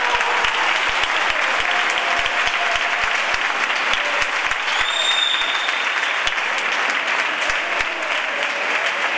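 Spectators applauding steadily in a sports hall, with a short high whistle about five seconds in.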